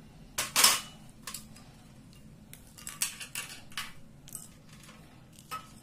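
Short metallic clinks and scrapes in a stainless steel mixer-grinder jar as raw chicken pieces are put in. There is one louder scrape about half a second in, then scattered lighter clinks.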